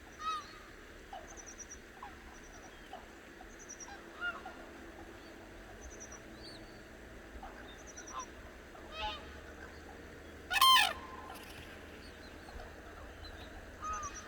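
Cranes calling: a few separate loud calls every few seconds, the loudest about ten and a half seconds in. A faint high chirp repeats about every second and a half underneath.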